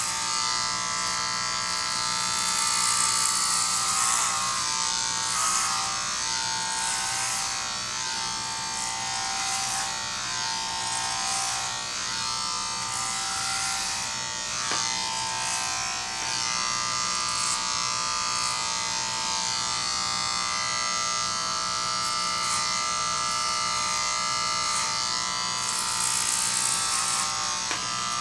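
Electric hair clipper buzzing steadily while shaving a head, with a brief higher hiss every few seconds as strokes pass through the hair.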